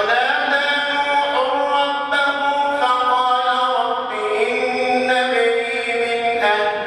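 A single man's voice chanting Quran recitation in long, melodic held notes that step up and down in pitch, with a new phrase beginning near the end. This is the imam's recitation during the standing part of the Taraweeh prayer.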